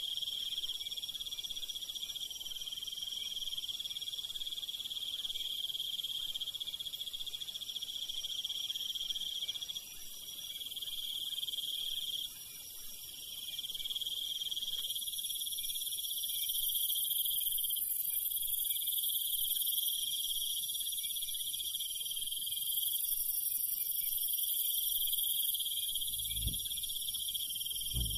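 Night chorus of crickets and other insects: a steady, shrill trill at several pitches. A couple of low thuds come near the end.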